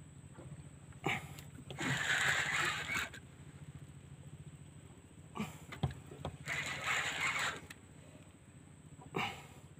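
Spinning reel cranked against a heavy fish, its gears whirring in a fast, even rhythm, with two louder hissing bursts, one about a second in and one near seven seconds.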